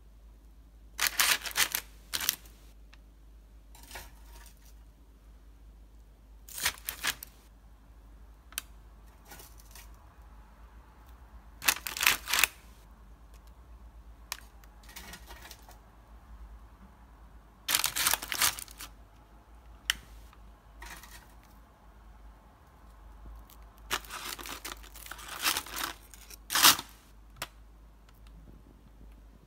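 Parchment paper lining a bowl crinkling in short rustling bursts, several seconds apart, as crisp deep-fried shrimp toasts are set into it one at a time, with a cluster of bursts near the end.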